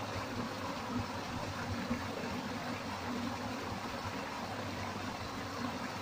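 Small waterfall pouring into a rock pool, a steady even rush of water.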